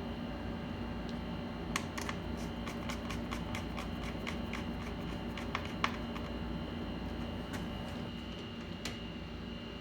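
Scattered light clicks and taps, irregular and thickest in the first half, over a steady background hum.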